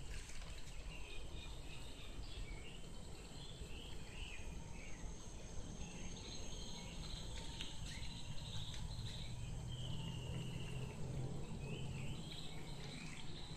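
Outdoor ambience: many short, high-pitched chirps from small birds or insects, over a low steady hum.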